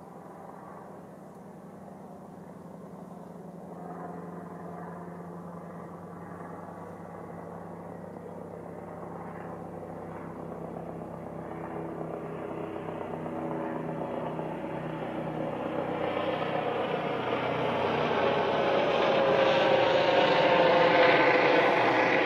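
Airbus Helicopters H135 twin-engine helicopter in flight, growing steadily louder as it approaches, with several steady tones over a rushing noise.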